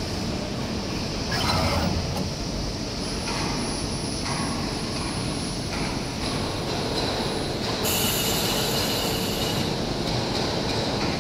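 CNC fiber laser tube cutting machine running: steady mechanical machine noise, with a short burst of noise about a second in and a longer high hiss about eight seconds in.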